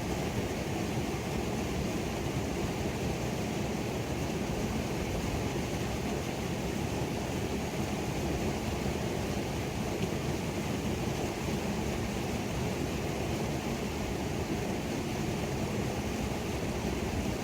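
Creek waterfall rushing steadily, a constant deep wash of falling water with no breaks.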